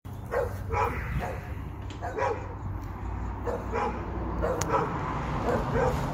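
A dog barking repeatedly in short, sharp barks, several to the second in places.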